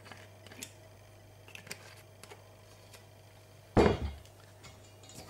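A few faint clicks of kitchen handling, then one loud, dull knock of kitchenware on the tabletop nearly four seconds in.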